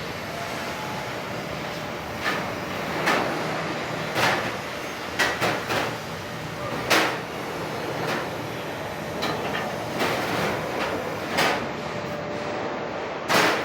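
About a dozen irregular knocks and clanks, spaced roughly a second apart with a loud one near the end, over a steady background noise.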